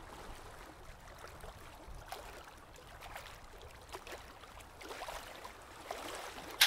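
Faint steady hiss with a few soft, irregular clicks, and a sharper click near the end.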